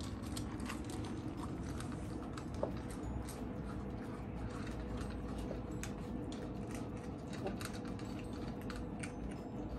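Several cats eating dry cat food from bowls: steady crunching and chewing, dotted with many small sharp clicks.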